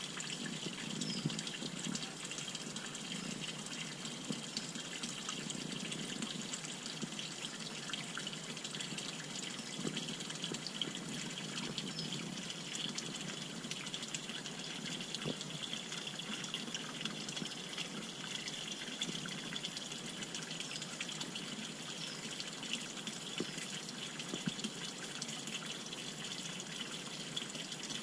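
Water pouring steadily from a pipe into a small fish pond: a continuous trickling splash.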